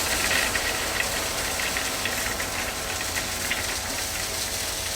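A machine engine running steadily under a constant hiss, with faint scattered ticks and rattles.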